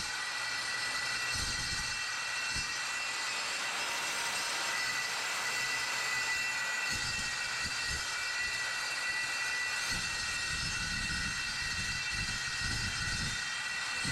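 Evolution S185CCSL 7¼-inch metal-cutting circular saw running steadily under load as it cuts through 1/4-inch mild steel plate. It gives a continuous high-pitched whine made of several steady tones.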